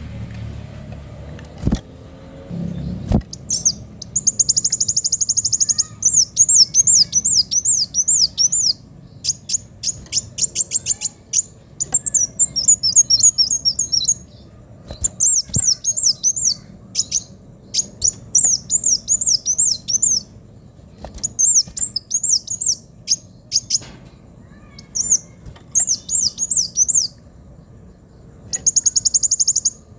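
A kolibri wulung sunbird singing energetically: fast strings of high-pitched, down-slurred chirps in bursts separated by short pauses, with a rapid buzzy trill about four seconds in and another near the end. Two sharp knocks come before the song starts.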